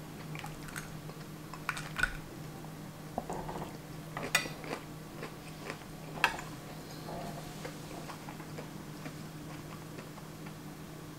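Knife and fork clicking and scraping on a ceramic plate as food is cut, a handful of sharp clicks in the first six seconds, the loudest about four and six seconds in. A faint steady low hum runs underneath.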